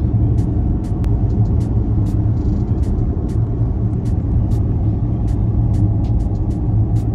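Loud, steady low road rumble inside a car cabin moving at highway speed: tyre and engine noise with no change in pace.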